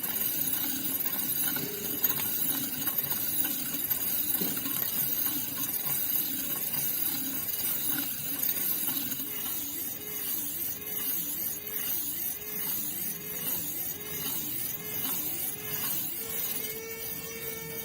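Small electric motor of a homemade model machine running with a wavering pitch, then settling into a steady hum near the end.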